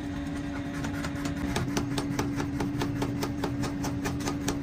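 Electric power hammer rapidly hammering red-hot leaf-spring steel, with fast, even blows at about five a second over a steady hum.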